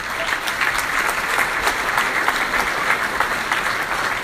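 Audience applauding steadily, a dense mass of clapping greeting a prize-draw winner whose name has just been announced.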